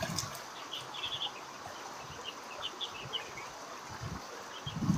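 Small birds chirping in short bursts of two to four quick high notes, repeated throughout.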